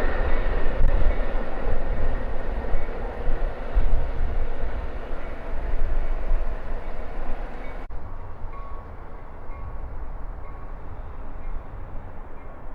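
A train running past on the tracks with a heavy, rumbling rail noise. About eight seconds in, the higher part of the sound cuts off abruptly and the rumble carries on quieter.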